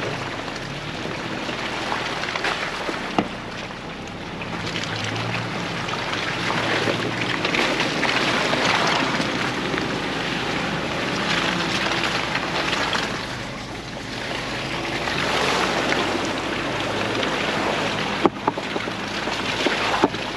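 Ford Bronco driving slowly on a muddy trail: engine running at low revs under the swelling noise of tyres churning through mud and puddles, with wind buffeting the microphone. A few sharp knocks near the end.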